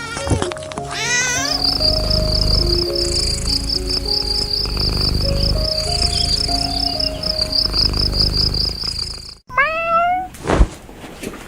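A cat meows near the start and again near the end, with a cricket chirping in a steady rapid trill between the two calls. Soft background music with stepped notes plays underneath; it cuts out briefly just before the second meow, and a single click follows that meow.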